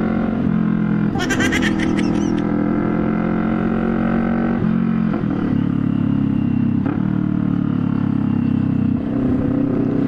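CFMoto 400NK's parallel-twin engine running loud through a new aftermarket slip-on muffler fitted without a resonator, heard from the rider's seat while riding. The note shifts and briefly dips about five, seven and nine seconds in.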